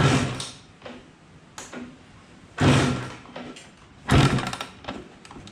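Suzuki RM125 two-stroke dirt bike being kickstarted: three kicks, each a loud thump as the engine turns over briefly, without firing.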